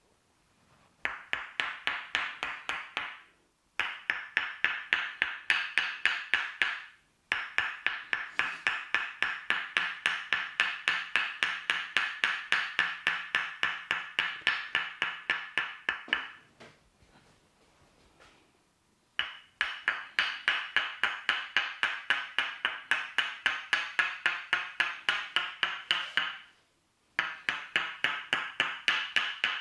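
Tok sen tools: a wooden mallet rapidly tapping a wooden wedge, giving an even train of ringing wooden knocks. The knocks come in several runs broken by short pauses, the longest a couple of seconds after the middle.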